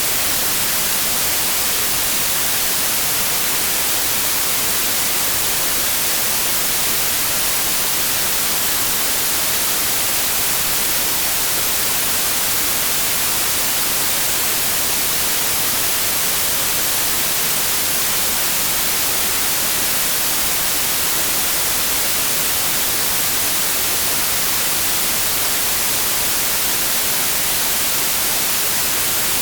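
Steady, unbroken white noise: an even hiss that does not change, heaviest in the high frequencies.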